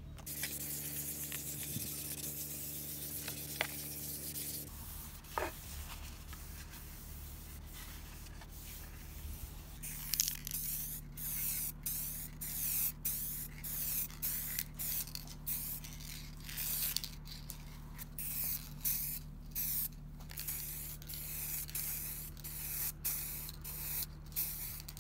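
Aerosol can of 1K clear coat spraying. There is a steadier hiss in the first few seconds, then many short hissing bursts about a second apart.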